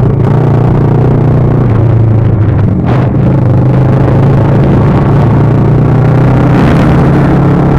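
Kawasaki ER-6n's parallel-twin engine running loud through a straight pipe with no muffler, holding a steady speed.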